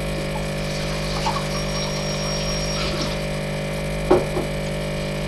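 Capsule coffee machine's pump buzzing steadily while it brews coffee, with a few faint clicks, one about four seconds in.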